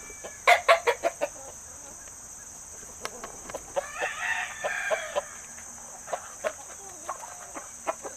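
Game rooster crowing about four seconds in, among clucking chickens. A quick run of loud knocks comes near the start.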